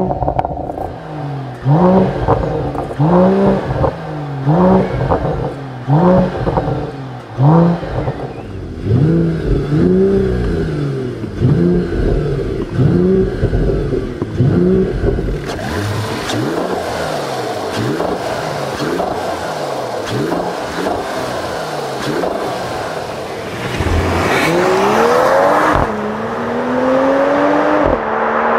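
Turbocharged 3.0-litre inline-six of a Mercedes-AMG GT 53 4-Door, revved in quick blips at standstill, about one a second, each rising and falling in pitch. After about fifteen seconds it gives way to a run under acceleration, the engine pitch climbing and dropping at upshifts near the end.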